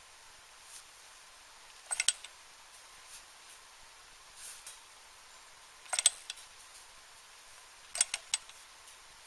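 Small model Stirling engine, warming on its burner but not yet running on its own, its flywheels and crank linkage turning in fits. This gives short clusters of two or three sharp metal clicks about two, six and eight seconds in.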